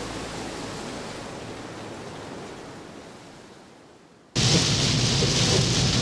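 Gusty tropical-storm wind rushing, fading away over about four seconds, then cutting suddenly to loud heavy rain and wind noise.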